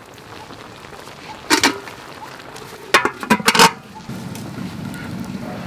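Metal cookware clinking: one clink about a second and a half in, then a quick run of clanks around three seconds in as a metal dome lid goes onto a wok of steaming shrimp. After that comes a low steady rumble.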